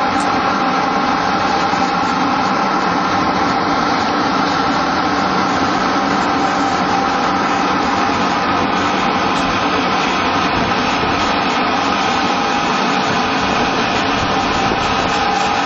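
Small feed pellet production line running at a steady pace: a loud, constant machine hum and rattle with a steady high whine on top.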